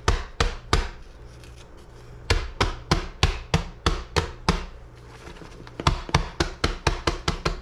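Fingertips tapping shredded cheese down into aluminium foil pans on a wooden table: quick, sharp taps, several a second, in three runs with short pauses between them.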